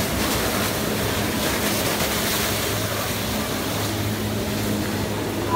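Jet ski engine running steadily to drive a flyboard through its hose, with an even rush of water spray from the board's jets under a low steady hum.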